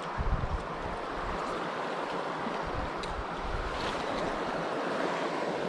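Steady rush of a small stream's water running over rocks, with a few low wind buffets on the microphone in the first half second.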